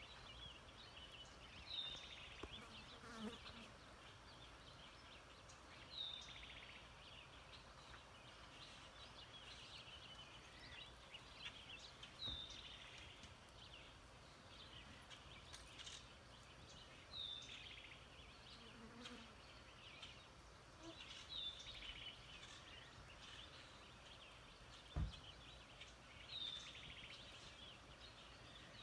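Faint outdoor nature ambience: a short high chirp repeats about every four to five seconds over light buzzing, and there is a single thump about 25 seconds in.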